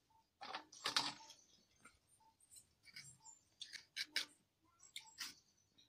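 Faint, irregular light clicks and scrapes of a raw green mango being cut by hand on a floor-mounted curved iron blade, with the pieces handled over a steel plate.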